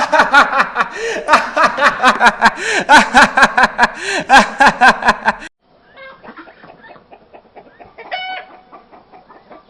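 A flurry of loud, rapid clucking calls like a flock of hens, about four or five a second, that stops suddenly about five and a half seconds in, leaving quieter scattered clatter and one short call near the end.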